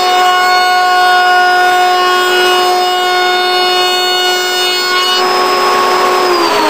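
Table-mounted Freud router with a round-over bit running at full speed with a steady high whine while a Baltic birch plywood boomerang blank is fed around the bit. Near the end the whine falls steadily in pitch as the router is switched off and spins down.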